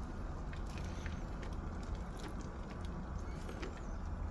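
Gas barbecue burners running with a steady low rumble, with scattered faint crackles from oiled chicken skewers cooking on the grill.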